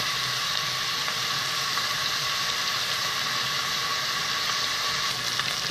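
Chopped onions frying in hot oil in a stainless steel pot: a steady sizzle.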